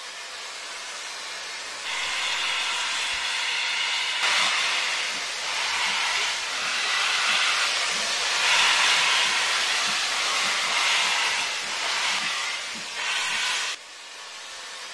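Recorded sound of a full-size steam locomotive working slowly: a loud hiss of steam over a regular low chuff. The hiss swells a couple of seconds in and cuts off suddenly near the end.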